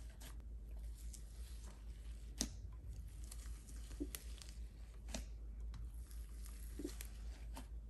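Fluffy slime with foam beads squeezed, stretched and pulled apart by hand: soft sticky crackling with a handful of sharper pops, over a low steady hum.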